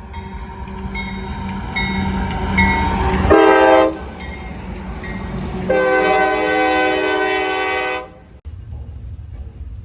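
Locomotive multi-chime air horn sounding a chord: a short blast just over three seconds in, then a longer blast of about two seconds, over the low rumble of a train. The sound cuts off abruptly just after eight seconds, leaving a quieter steady rumble.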